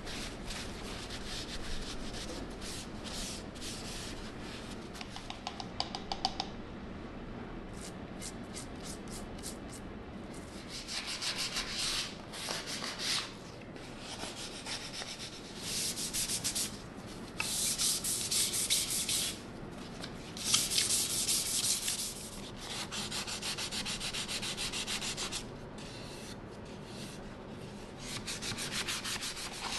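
Sandpaper rubbed by hand up and down turned wooden stool legs. It comes in quick back-and-forth strokes, in spells of a few seconds with short pauses between.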